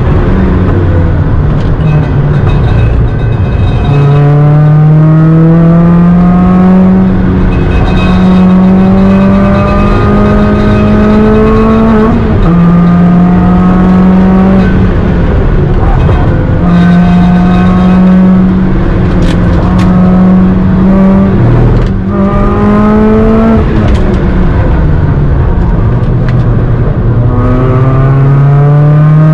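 Supercharged Mazda MX-5's four-cylinder engine driven hard on track, heard inside the cabin. The engine note climbs under full throttle and drops sharply at each gear change, several times over, with the revs falling off briefly before it pulls again.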